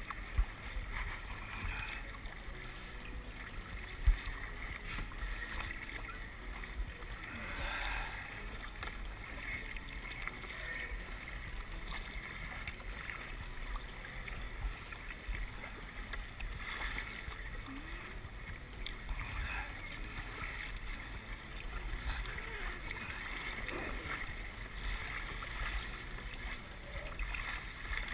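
Wind buffeting the microphone and choppy water slapping against a sit-on-top kayak as it is paddled, with one sharp knock about four seconds in.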